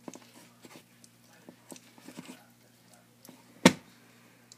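Tortoise biting and chewing shredded food from a plastic dish: scattered soft crunching clicks, with one sharp, much louder knock about three and a half seconds in.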